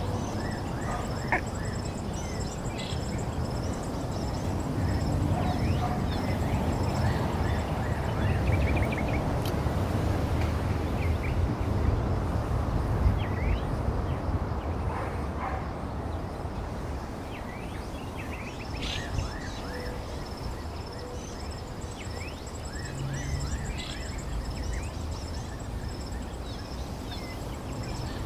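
A chorus of frogs calling: many short, falling chirps, over an evenly pulsed high call that drops out for several seconds in the middle, against a steady low background rumble.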